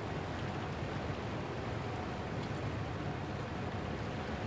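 Steady wind rumbling on the microphone over the wash of choppy sea water, with no distinct events.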